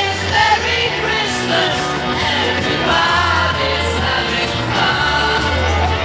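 Music with a sung vocal melody over a steady bass beat.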